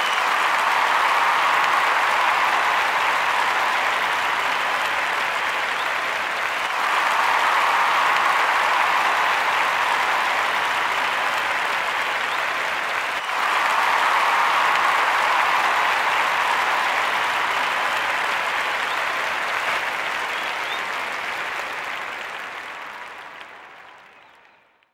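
A crowd applauding, rising and falling in three long swells, then fading out near the end.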